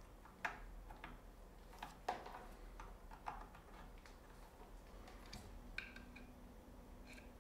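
A few faint, sharp clicks and taps of cable plugs being pushed into the sockets of a diode laser engraver's control box, the loudest about half a second and two seconds in.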